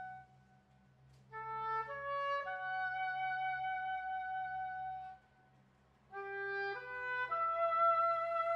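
Music: a single wind instrument plays two slow rising phrases of three notes, each ending on a long held note, with a short pause before each phrase. A low steady hum sits underneath.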